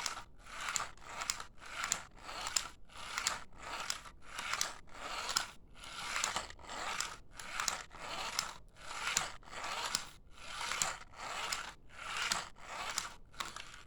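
Rhythmic scraping or rasping noise, about two strokes a second, evenly spaced and steady.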